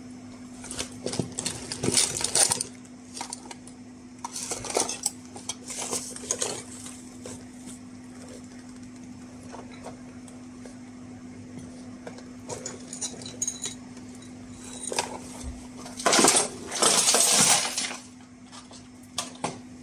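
Metal tweezers and small tools clinking and tapping on a workbench during soldering, over a steady low hum. A louder, longer clatter of handling comes near the end.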